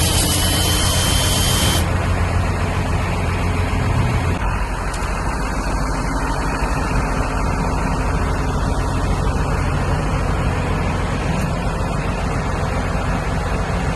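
Steady low rumble of a vehicle in motion. A high hiss with a thin whistle-like tone cuts off suddenly about two seconds in, and the rumble eases slightly a couple of seconds later.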